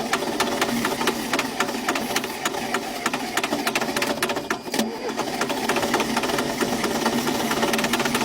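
Old bulldozer's diesel engine running roughly with a rapid, loud clatter of knocks, firing on ether alone rather than on its own fuel.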